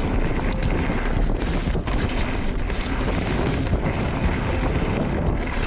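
Mountain bike riding fast down a rough trail: steady wind rumble on the microphone with a rapid, irregular clatter of the bike rattling over bumps and loose stones.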